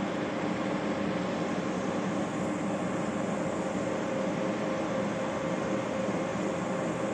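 A steady mechanical hum with a few held tones over an even rushing noise, unchanging in level.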